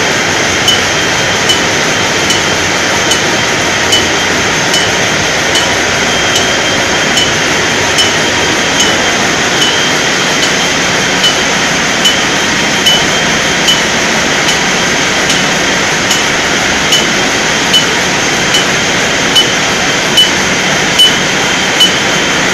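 Motor-driven valve lapping machine running, grinding diesel cylinder-head valves in against their seats. A steady whir carries a regular metallic click a little more than once a second.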